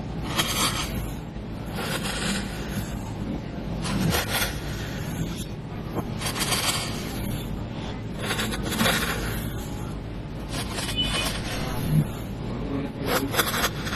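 Slime being squeezed and worked by hand: a short noisy burst every two seconds or so, over a low steady rumble.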